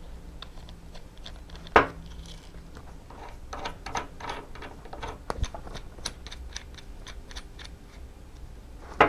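Small brake parts being handled on a workbench, with scattered light clicks and clatter and two sharper knocks, one about two seconds in and one at the very end.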